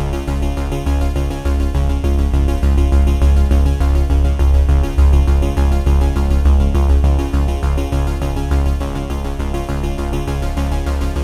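Background electronic music with a steady beat and strong bass.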